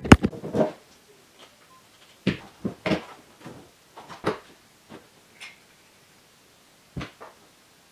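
Hands and a hand tool working at the drain fitting and foam fill of an aluminum boat's livewell: a clatter in the first second, then a handful of scattered short knocks and clicks.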